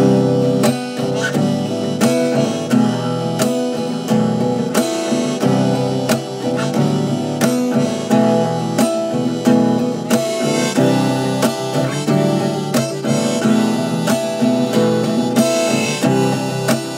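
Harmonica playing a melody over strummed acoustic guitar, an instrumental break in a folk song with no singing.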